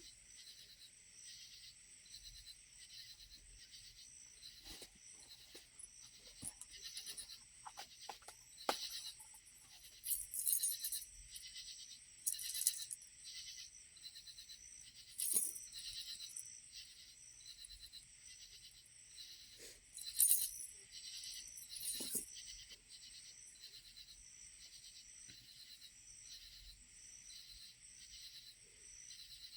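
Steady chorus of crickets or similar insects, pulsing evenly, with a handful of short scrapes and clicks from handling fire-starting gear and twine.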